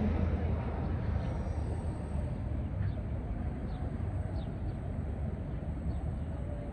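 Outdoor city background: a steady low rumble of wind buffeting the microphone and street traffic, with a few faint short chirps in the middle.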